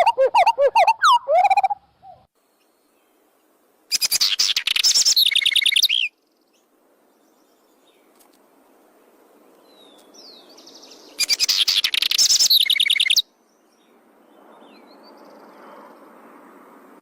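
A bird singing in three loud bursts of fast, rapidly repeated chirping notes, each about two seconds long: one at the start, one about four seconds in, and one about eleven seconds in. A faint hiss fills the gaps.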